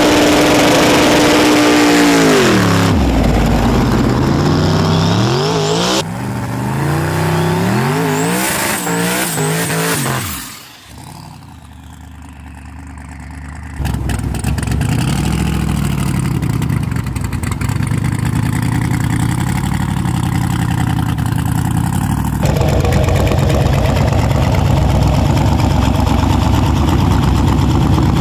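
Twin-turbo small-tire Camaro drag car's engine at the starting line: held at high revs, then falling and revved up and down repeatedly. It drops away briefly about ten seconds in, then runs on at a lower, steady rumble with occasional revs.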